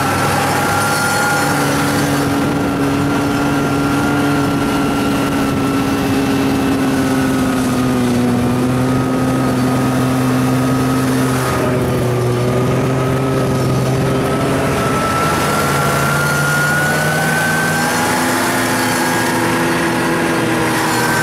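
Snowmobile engine running steadily while the machine travels over snow, its pitch sagging a little about halfway through and then climbing again.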